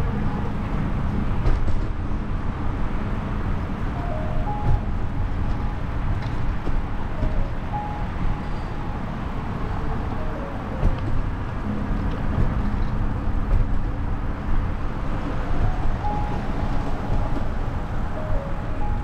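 Wind and road noise rumbling on the microphone of a moving bicycle, with a simple tune of short, clear notes playing in the background every few seconds.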